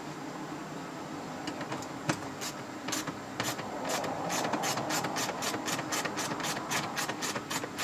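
A screw being driven in with a ratcheting hand tool: a run of sharp clicks that come faster and more evenly, about four a second, from about four seconds in.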